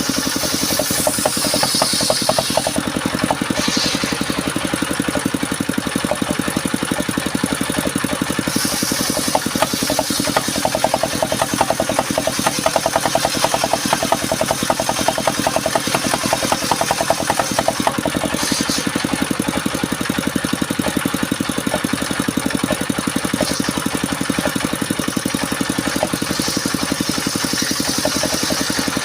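Engine-driven circular saw machine for cutting timber running steadily, with a fast, even engine pulse. Brighter high-pitched noise rises and falls in several stretches, the longest in the middle.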